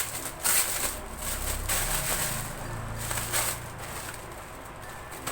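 Packaging and fabric rustling and crinkling in several short bursts as a folded fabric backdrop is unwrapped by hand.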